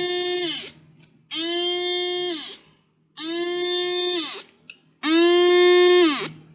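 Transistor alarm circuit built from seven NPN and PNP transistors, sounding its sixth alarm pattern. It gives a buzzy, steady-pitched beep of about a second that drops in pitch as it cuts off, repeating about every 1.8 seconds. Three full beeps are heard after the tail of one at the start, and the last is louder.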